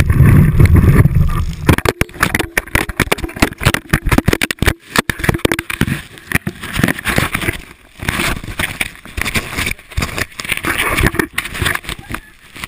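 Wind buffeting a GoPro's microphone at speed on a snowboard, a heavy rumble for the first couple of seconds. Then dense, irregular crackling and scraping as powder snow sprays over the camera and the board cuts through it, louder and softer in uneven surges.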